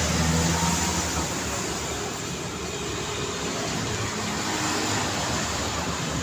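Busy street traffic: a steady wash of engines and tyres, with one vehicle's engine loudest in the first second as it passes close.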